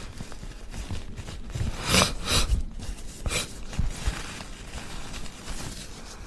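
A woman clearing her runny, allergy-stuffed nose with a tissue: a few short, noisy nasal blows and sniffs, the loudest about two seconds in.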